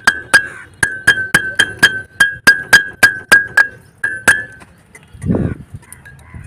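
Hammer blows on a steel wheel hub from a Tata Sumo Victa, tapping the hub with its new bearings home: about fifteen sharp metallic strikes, about four a second, each ringing briefly at the same pitch. The strikes stop after about four and a half seconds, and a single dull thump follows.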